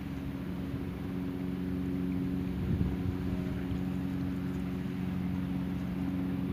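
A motor boat's engine drones steadily across the water as the boat pushes against a strong sea current. A brief thump comes about three seconds in.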